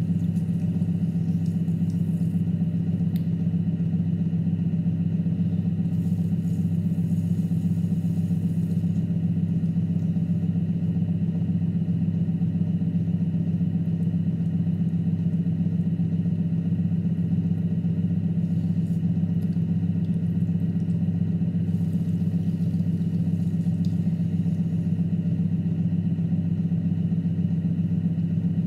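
Electric potter's wheel motor running at a steady speed with a constant low hum.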